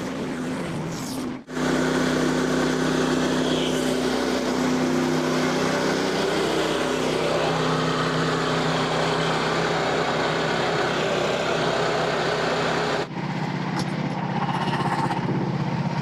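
Portable band sawmill's engine running steadily as the blade cuts through a large red oak log. The sound breaks off abruptly about a second and a half in and again near the end, with a lower, rougher engine note after the second break.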